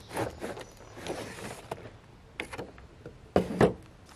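Cardboard and plastic packaging of a diecast model car box being handled and slid open: short scraping rustles, then two sharp knocks close together near the end.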